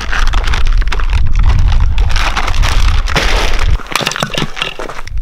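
Crackling, crinkling handling of a bag of firewood and kindling at a fire pit, full of sharp snaps, over a low rumble. It drops off about four seconds in to a few scattered clicks.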